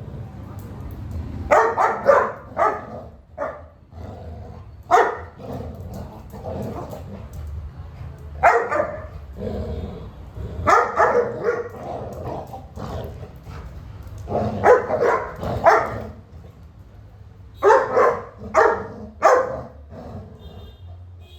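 Dogs barking in play, in short clusters of several barks every few seconds.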